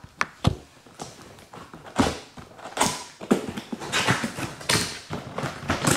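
Cardboard carton being opened by hand: a run of irregular scrapes, rustles and light knocks as the box and its top flaps are handled, busier from about two seconds in.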